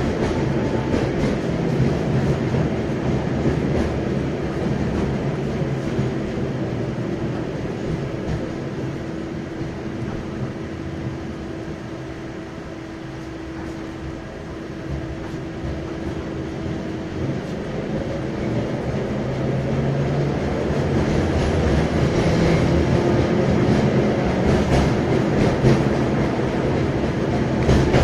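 A 71-619 (KTM-19) tram running along its street tracks, heard from inside the passenger cabin: a continuous rumble of wheels on rails. It grows a little quieter in the middle, gets louder again later, and there are a few sharp clicks near the end.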